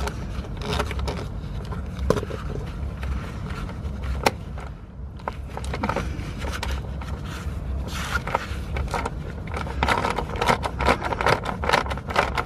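Socket wrench on a long extension undoing the fuel filter bracket fasteners: irregular metallic clicks and scraping, busier in the last few seconds, over a low steady hum.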